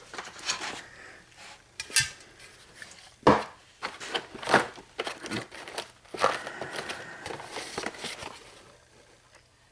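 Metal hand tools from a Snap-on set being handled: scattered clinks and knocks of steel, with a stretch of rustling about six seconds in.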